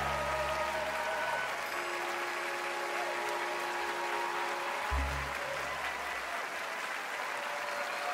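Audience applauding over the orchestra's final held chord, which fades out over the first few seconds. A short low note sounds once about five seconds in, then the applause carries on alone.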